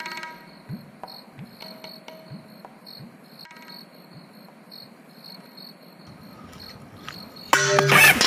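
Crickets chirping in a steady, repeating pattern, with faint low drum taps beneath them in the first few seconds. Loud music cuts in near the end.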